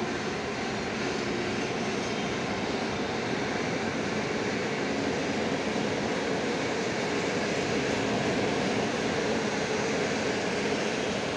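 Electric train running along the track through a station, a steady rolling noise that swells slightly past the middle.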